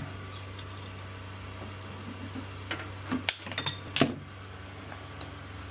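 A few sharp clicks and knocks, loudest about four seconds in, over a steady low hum, from tools and fittings being handled at the pipework.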